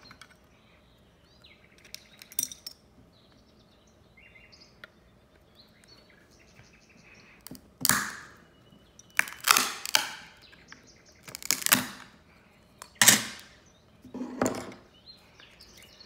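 Hard plastic of a Beckett (BGS) graded-card case being cracked apart by hand: small clicks and handling noise at first, then a series of about six loud, sharp cracks and snaps in the second half.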